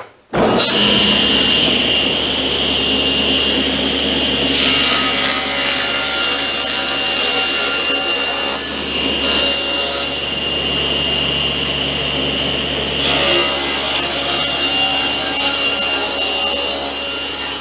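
JET cabinet table saw running with a steady high whine, its blade cutting through the edge of a plywood sheet from about four seconds in, with a short break near the middle, until near the end.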